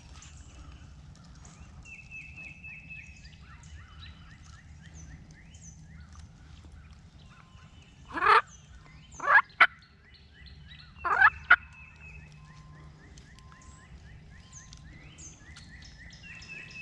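A wild turkey gobbler gobbling loudly twice, about eight and eleven seconds in: a hot tom answering. Faint trills of small songbirds run underneath.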